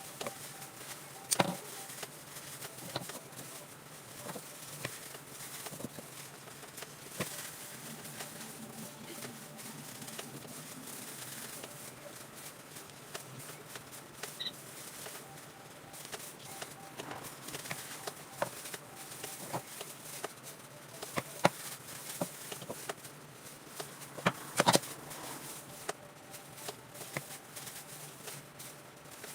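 Scattered taps, clicks and rustling from hair dye being applied to the roots by hand with a tint brush and bowl. The sharpest clicks come about a second in and twice near the end.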